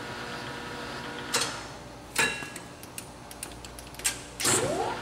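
Mori Seiki MS-850 engine lathe running steadily, then shut off: two clunks from its controls as the feed direction is switched, the second the loudest with a short metallic ring, and a few lighter clicks. Near the end the lathe starts up again with a rising whine that settles into a steady hum.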